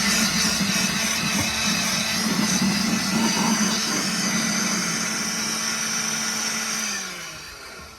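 Hand-held electric drill running steadily at full speed for several seconds, then released about seven seconds in and spinning down.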